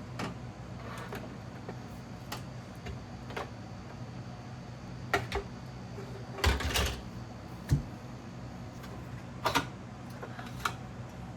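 Handling small plastic sewing-machine accessories and packaging: scattered clicks, taps and knocks, a loud cluster of them about two-thirds of the way through, over a steady low hum.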